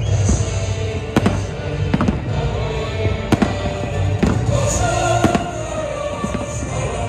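Aerial fireworks shells bursting with sharp bangs about once a second, over a low rumble and music.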